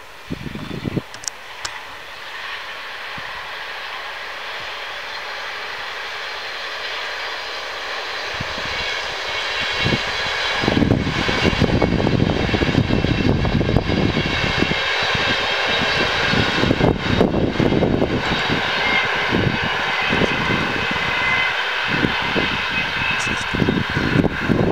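Bombardier TRAXX electric locomotive hauling a train of ICR passenger coaches going past: a steadily growing rush of wheels on rail with a high whine from its traction equipment, loudest from about ten seconds in as the train passes close.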